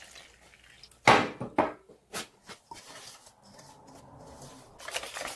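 Water poured into a stainless steel mixing bowl of pancake flour, with a sharp clank about a second in and a few lighter knocks. Near the end a wire whisk starts beating the batter against the steel bowl, a fast run of scraping clicks.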